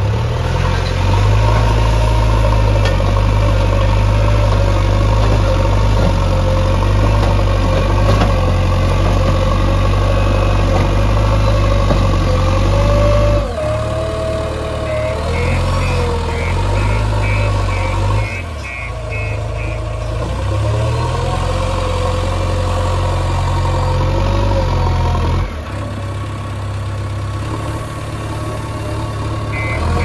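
JCB backhoe loader's diesel engine running hard under load as the front bucket digs into and lifts sand, its pitch rising and falling with the work. A rapid high beeping comes in midway and again at the very end.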